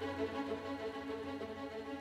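Background music with held notes, fading out.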